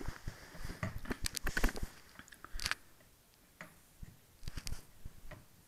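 Scattered small clicks and taps from handling an RC plane's new nose landing gear, a metal strut with twin small wheels, held against the plane's nose and set on the floor. The clicks come in a quick cluster over the first two seconds, then only a few at a time.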